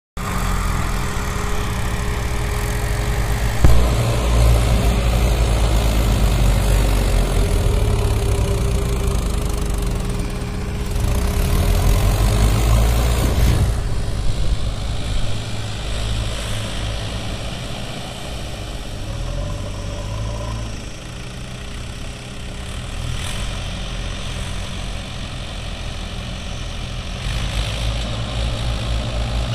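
Mahindra 575 DI tractor's diesel engine pulling hard against a fully loaded trolley, straining enough to lift its front wheels, with a JCB 3DX backhoe's diesel engine running close behind. A single sharp thump about four seconds in.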